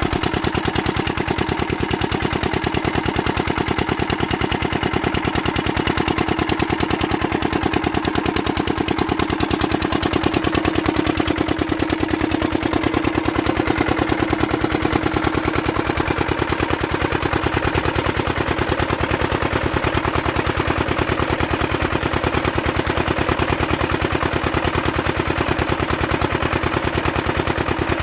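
Single-cylinder diesel engine of an irrigation water-pump set running steadily with a rapid, even chugging beat, with water gushing out of the pump's outlet pipe.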